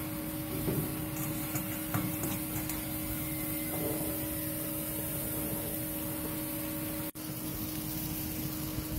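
Steady machine hum with an even hiss beneath it, with a few light knocks in the first two seconds; the sound drops out for an instant about seven seconds in.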